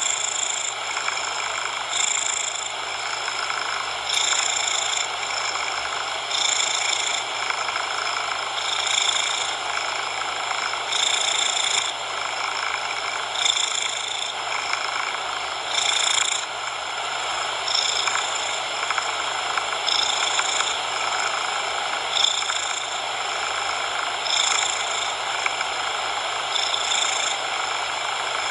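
Domestic cat purring over a steady bed of coloured noise; the sound swells and eases about every two seconds with the cat's breathing.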